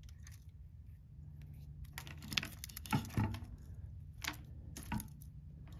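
Light clicks and clatter of an old Weller soldering gun's parts being handled and pried apart by hand, with a few sharp separate taps from about two seconds in.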